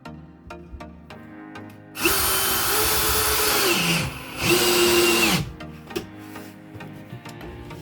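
Power drill run twice, first for about two seconds and then for about one, its motor whine steady and then falling in pitch as it stops each time. Background music plays underneath.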